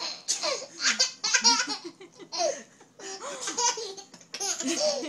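Baby laughing hard in repeated bursts of belly laughter, about five fits with short pauses between.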